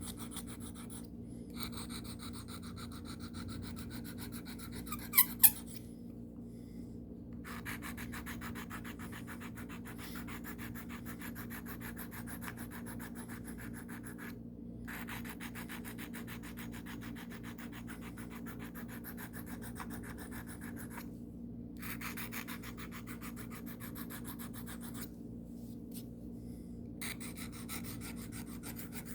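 Carbon steel pocket-knife blade being stroked rapidly back and forth on the smooth side of a sharpening stone, a steady scraping rasp in long runs broken by short pauses. Honing the edge before stropping. Two sharp clicks about five seconds in.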